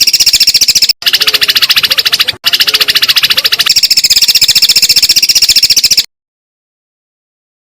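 A songbird's high, rapid, even trill of about a dozen notes a second, played as a bird-training (masteran) recording. It breaks off briefly twice and stops about six seconds in.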